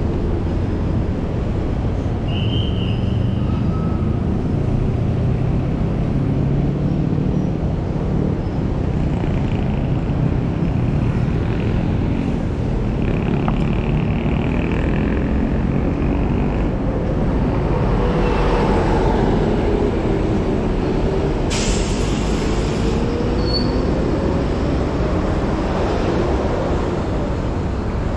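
Heavy city road traffic, with buses and trucks running alongside, over a steady low wind rumble on the microphone of a moving scooter. A short hiss comes a little past two-thirds of the way in.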